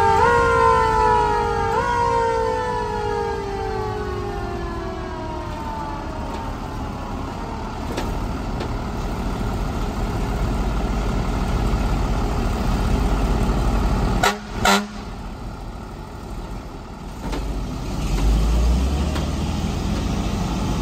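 Fire engine's mechanical siren winding down, its pitch sliding steadily lower for several seconds with one brief lift about two seconds in before it fades. Fire engines' motors keep running low and steady underneath.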